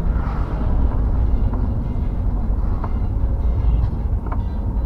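Steady road and wind rumble from a moving car, with a few faint ticks.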